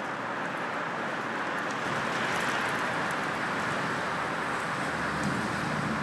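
Steady hiss of heavy storm rain and wind. About five seconds in, a low rumble is added as a vehicle passes close by.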